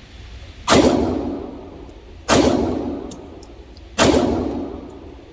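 Three shots from a Glock 43X 9mm pistol, evenly spaced about a second and a half apart, each followed by a ringing tail that dies away.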